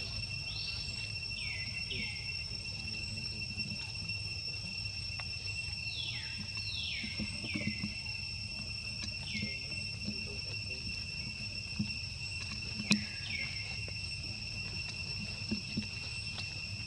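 Steady, high-pitched insect drone, crickets or cicadas holding two constant pitches. Over it, groups of two or three short falling chirps come every few seconds. There is a low rumble, and a single sharp click about thirteen seconds in is the loudest moment.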